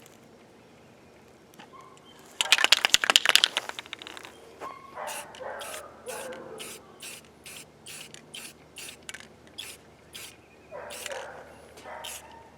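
Aerosol spray paint can: a second or so of dense rattling, like the can being shaken, then a long run of short, quick spray bursts, about two or three a second.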